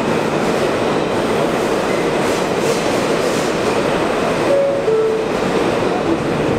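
R160 subway car running through a tunnel, heard from inside the car: a loud, steady rumble of wheels on the rails, with a couple of short squeals midway.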